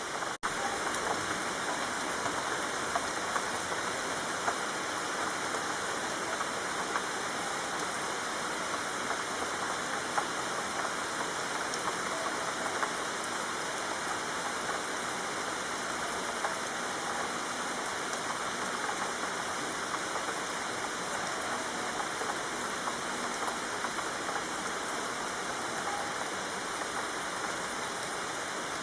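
Steady rain falling, a continuous hiss with scattered louder drop ticks. The sound briefly drops out about half a second in.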